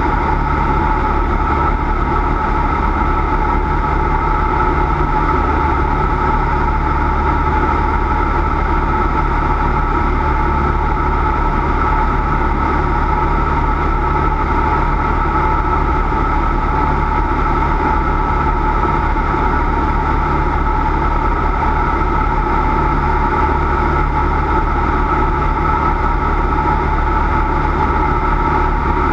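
Cessna 172's piston engine and propeller running steadily, a constant drone with fixed tones and a deep rumble that stays unchanged throughout.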